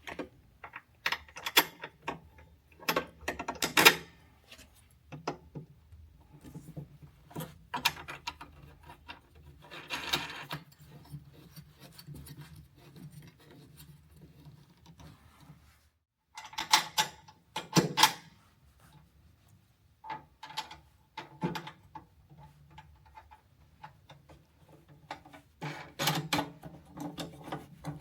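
Irregular metal clicks, knocks and rattles of a bolt, hand tools and the handlebar as the handlebar is bolted onto the lower bracket, with a brief dead gap about midway.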